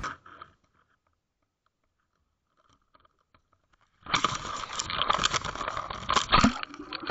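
A small camera rigged to a fishing float being cast and landing on the water, heard through the camera's own microphone as a dense crackling, sloshing rush with many small clicks against its housing. It starts suddenly about four seconds in, after near silence.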